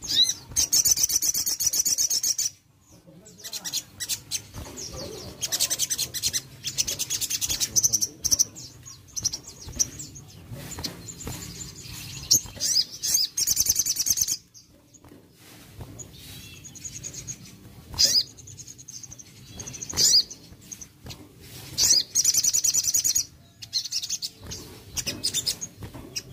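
Sunbird (sogon) singing: rapid, high trilling phrases of one to two seconds each, repeated over and over with short pauses between.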